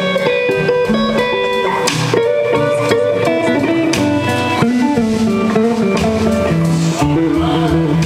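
Live blues-rock band playing an instrumental passage: two electric guitars playing sustained melodic lines over bass and drums.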